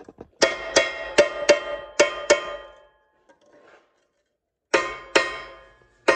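Hammer blows on steel over an anvil, each strike ringing, as the rivets of a replacement sprocket nose tip are pounded home in a chainsaw guide bar. Six quick blows come in the first two and a half seconds, then a pause, then two more near the end.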